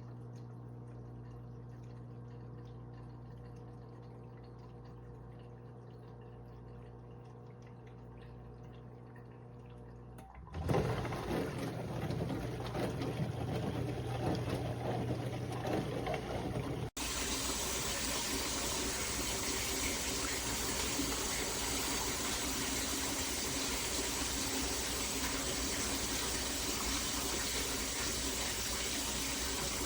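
Mini countertop dishwasher running: a steady pump hum, then about ten seconds in a loud rush of water starts up suddenly and carries on.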